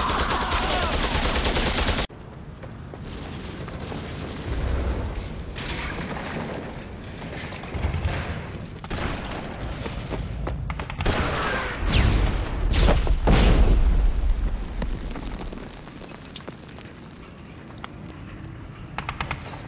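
Battle sound effects: explosions and gunfire. A dense volley of gunfire cuts off abruptly about two seconds in. Separate shell blasts follow, the biggest about twelve seconds in with a low rumble lasting a couple of seconds, and scattered shots come near the end.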